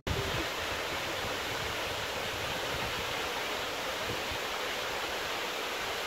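Aya waterfall, a 14-metre cascade, with water falling steadily over rock in an even rushing sound.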